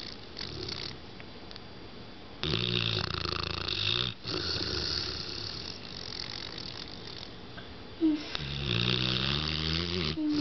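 Pit bull snoring: two loud, rasping snores about six seconds apart, each drawn out over roughly two seconds, with softer breathy exhales between them.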